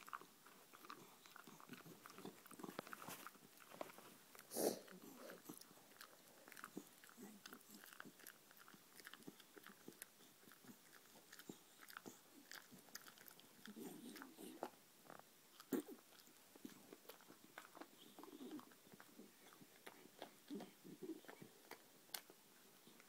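Beagle chewing a hard dog chew: irregular small crunches and clicks of teeth, with one louder crunch about five seconds in.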